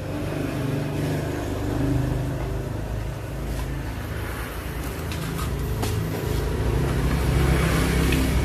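A low, steady engine-like rumble, with a few light clicks as a plate is set down on a stainless-steel table among bowls.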